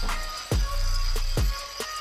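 Background music with a deep kick-drum beat and a steady high cymbal shimmer.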